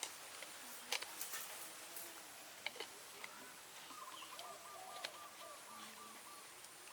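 Faint chirping calls from a small animal or bird, with a rapid trill of short repeated notes about four seconds in. Scattered sharp clicks and taps sound throughout, the loudest about a second in.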